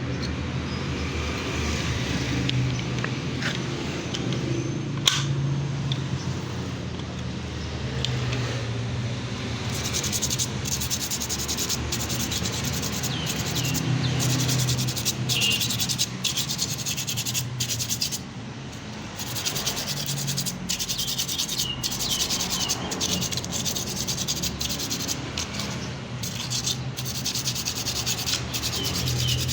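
Sandpaper rubbed by hand over motorcycle drum-brake parts in quick, repeated back-and-forth strokes, the usual way of roughening glazed brake shoes or a drum that squeals. A steady low hum runs underneath in the first half, and there is one sharp click about five seconds in.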